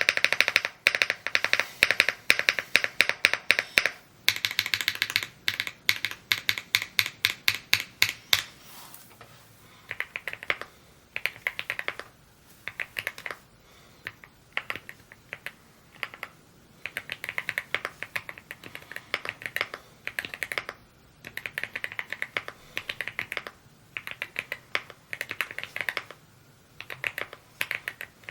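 Typing on a Rainy75 mechanical keyboard, a fast steady run of loud key clicks for about the first eight seconds. After that it turns quieter, in short bursts of keystrokes with brief pauses between them.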